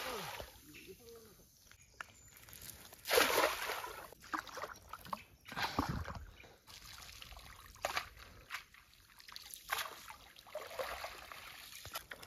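A cast net being hauled back in through shallow creek water: irregular sloshes and trickling drips, the loudest slosh about three seconds in.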